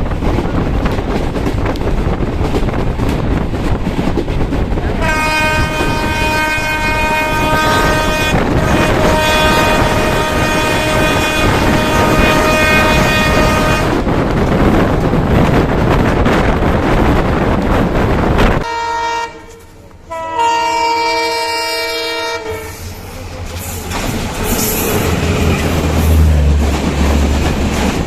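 Train running at speed with steady rail noise and clickety-clack, while the diesel locomotive's multi-tone horn sounds a long blast of about nine seconds from about five seconds in. After a sudden cut, a second horn blast of a few seconds with a brief break, then the running noise returns with a low engine drone near the end.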